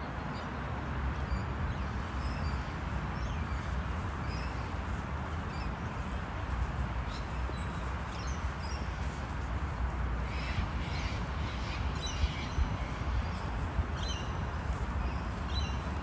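A flock of white cockatoos calling from a lawn: scattered short harsh calls, coming thicker in the second half, over a steady low rumble.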